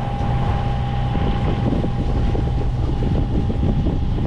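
54 hp Yanmar marine diesel of a sailing yacht running steadily at about 1,800 RPM under way, with a thin steady whine over its low note. Wind buffets the microphone.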